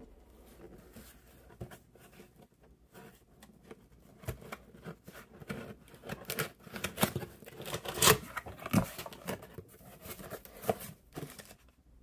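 Cardboard box and packing material being handled and opened: irregular rustling, crinkling and light knocks, sparse at first and busier and louder in the second half.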